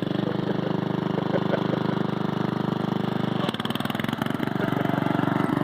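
Simplicity 4212 lawn tractor's 12-horsepower Briggs & Stratton engine running steadily, its sound changing about three and a half seconds in.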